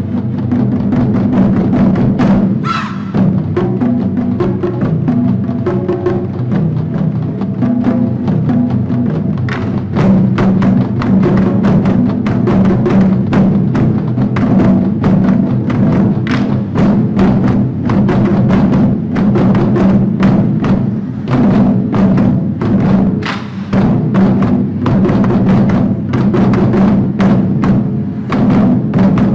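Taiko drums played in rhythm along with a recorded song, with many sharp, closely spaced drum strikes over a steady musical backing.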